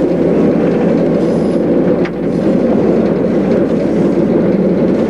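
Steady drone of an E8 diesel locomotive on the move, heard from inside its cab: engine running and wheels rolling on the rails. There is a single sharp click about two seconds in.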